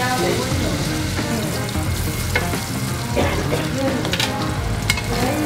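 Steak sizzling steadily in hot fat in a cast-iron skillet on a gas burner, the finishing sear after sous vide cooking. A few sharp clicks of metal tongs on the pan as the steak is turned.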